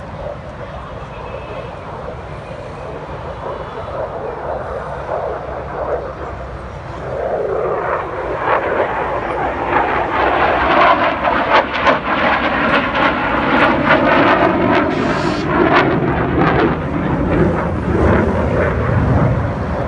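F-16 fighter jet's single turbofan engine: jet roar that swells about seven seconds in and stays loud as the jet passes, with a sweeping, phasing whoosh.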